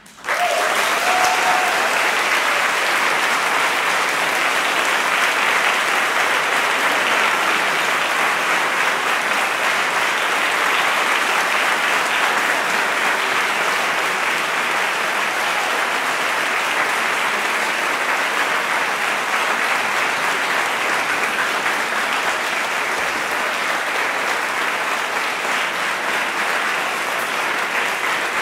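Audience applauding, starting suddenly and then holding steady and dense.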